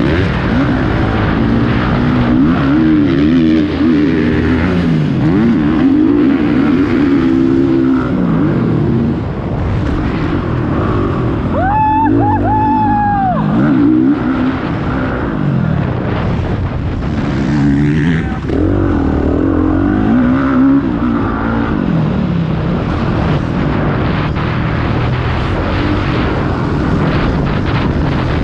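Motocross bikes racing, their engines revving up and dropping off again and again through gear changes as they pass. A brief high-pitched tone rises and falls about twelve seconds in.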